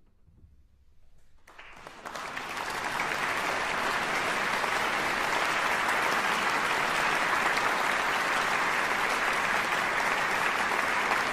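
About a second and a half of near silence, then audience applause breaks out, swells over the next second or so and holds steady.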